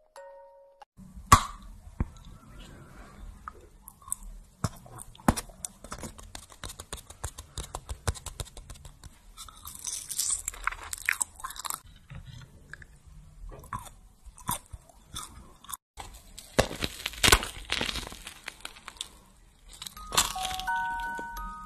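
Close-miked eating sounds: a person biting and chewing sweets, with many sharp crunches.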